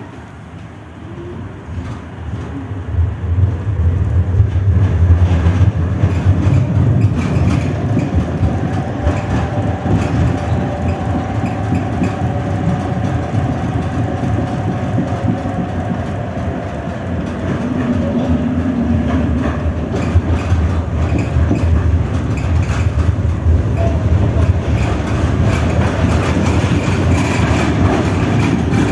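Düwag GT6 tram pulling away and getting louder over the first few seconds, then running along the track. A motor whine rises and then falls, and the wheels clatter and click on the rails over a steady low rumble.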